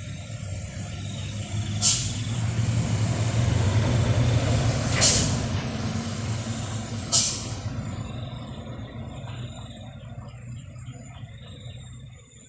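Heavy truck's diesel engine running, growing louder then fading, with three short sharp air-brake hisses about two seconds apart.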